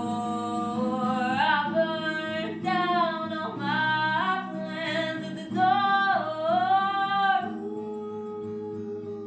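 A singer holding and sliding through long sung notes over acoustic guitar. The voice stops about seven and a half seconds in, leaving the guitar ringing alone.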